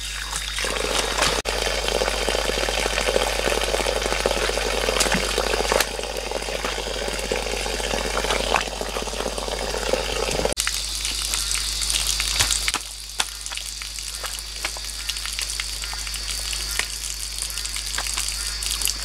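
A thin stream of water from a bamboo pipe falling and splashing steadily onto muddy ground and stones. About ten seconds in, the splashing turns thinner and hissier.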